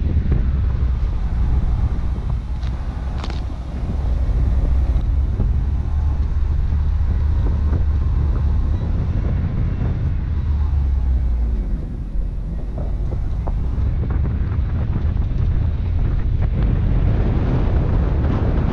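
Wind buffeting an outside-mounted camera's microphone over the low rumble of a 2003 Subaru Forester driving down a snow-covered dirt road, with scattered knocks from the rough surface.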